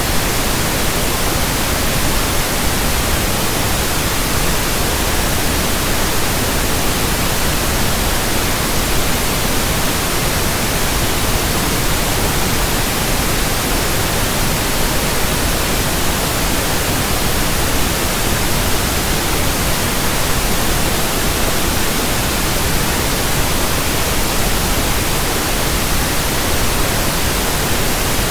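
Steady synthetic pink noise: an even, unchanging hiss with no tones or breaks.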